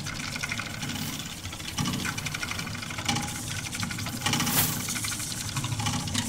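A motor running steadily, with a fast, even mechanical clatter over a low hum.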